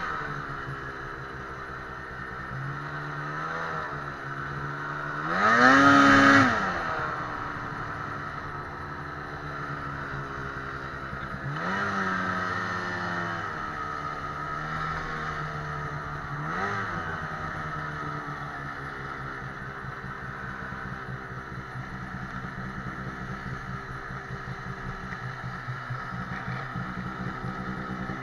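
Ski-Doo 800R two-stroke twin snowmobile engine running while riding over snow. The throttle surges three times, the loudest rise in pitch about six seconds in, then it settles to a low, steady idle.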